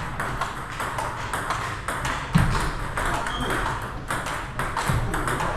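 Table tennis balls clicking off bats and the table in quick succession in a lesson rally, with a louder hit about two and a half seconds in.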